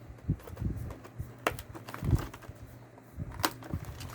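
Trading cards and their deck packaging being handled and sorted: scattered light clicks, taps and rustles at irregular intervals, over a faint steady hum.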